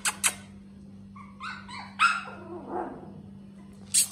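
Husky puppies yipping and whimpering in a short run of high, wavering calls, loudest about two seconds in. A few sharp clicks come at the start and another near the end, over a steady low hum.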